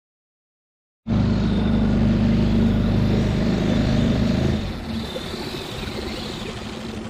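Small outboard motor on a fishing skiff running under way, its steady drone cutting in suddenly about a second in. A little past the middle it drops in level and the engine note weakens, as when the throttle is eased back.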